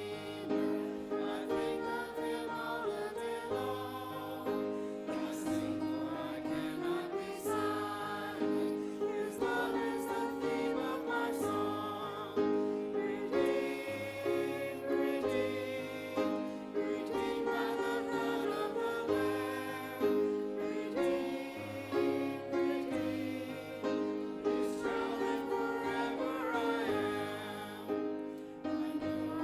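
Praise-and-worship song: voices singing over instrumental accompaniment with a steady repeating bass line.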